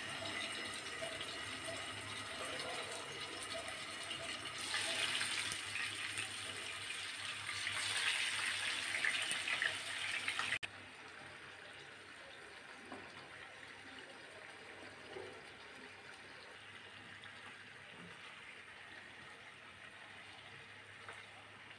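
Marinated fish pieces sizzling in hot oil in a nonstick frying pan. The sizzle grows louder as more pieces go into the oil, then about halfway through it cuts to a quieter, steady sizzle with a few light clicks of a fork turning the fish.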